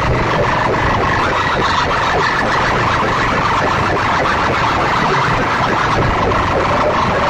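Two rival stacks of horn loudspeakers blasting at full volume at once, a steady, distorted din with wailing, siren-like tones.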